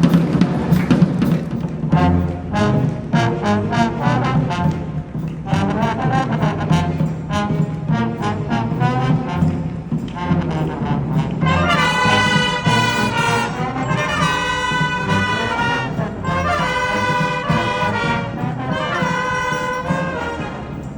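Youth brass band playing: drums and short brass figures at first, then from about halfway through, loud held brass chords in four phrases with short breaks between them.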